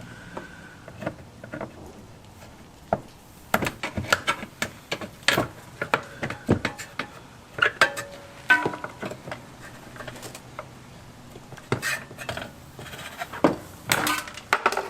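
Plastic retaining clips being pried out and a plastic trim panel being worked loose from under a Lexus LS400's rear: irregular sharp clicks, snaps and knocks.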